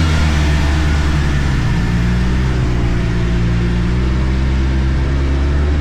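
Arctic Cat turbo snowmobile engine running at a steady speed, with a deep, even drone.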